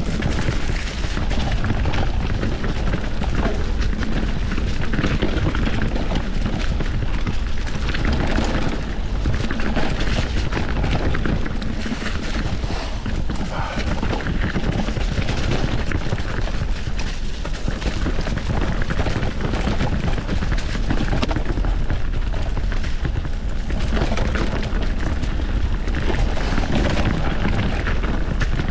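Polygon D6 mountain bike ridden along a rough dirt trail: tyres crunching and the frame and drivetrain rattling over roots and rocks, with a heavy low rumble of wind buffeting the microphone.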